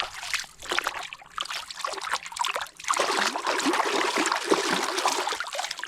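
Water splashing and trickling as a plastic toy is washed, irregular at first and steadier and denser from about halfway.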